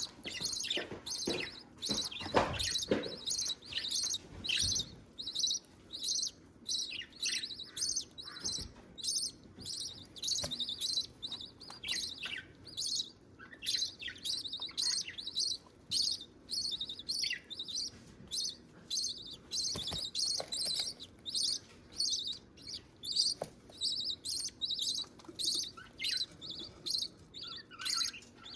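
Budgie chicks begging to be fed: a long run of short, high-pitched chirps repeated about twice a second, with a few fuller, louder calls in the first few seconds.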